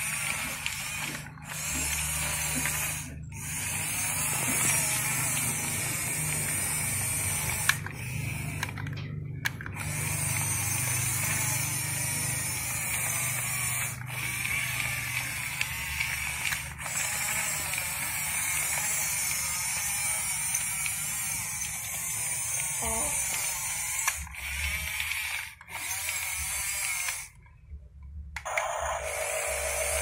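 Small electric motors and plastic gearboxes of a toy RC bulldozer whirring as it drives its tracks. The whirring cuts out briefly several times, most clearly near the end.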